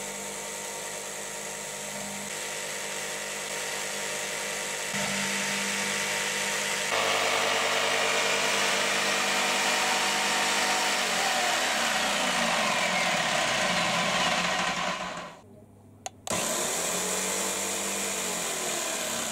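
Electric jigsaw mounted upside down in a homemade wooden table, running steadily while a strip of plywood is fed into the blade. About eleven seconds in the motor is switched off at the table's rocker switch and runs down. Near the end it is switched on again and spins back up to speed.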